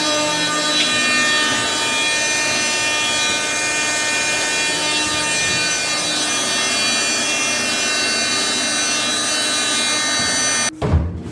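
Thickness planer running and cutting wet oak rib stock: a loud, steady machine whine over a rough cutting noise. It stops abruptly near the end.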